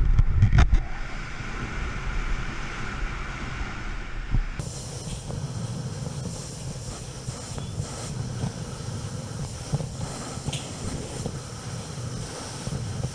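Wind rushing over a skydiver's camera microphone during a descent under an open parachute, a steady low rumble with hiss. A few knocks come near the start, and the noise changes abruptly about four and a half seconds in.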